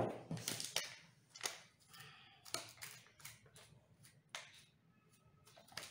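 Faint, irregular clicks and light taps of small kitchen items being handled, about a dozen spread over several seconds.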